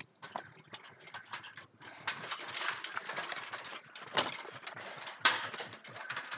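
Irregular footsteps, knocks and clanks on an aluminium ladder as a person climbs down it, with clothing and handling rustle; the sharpest knocks come about four seconds in and again just past five seconds.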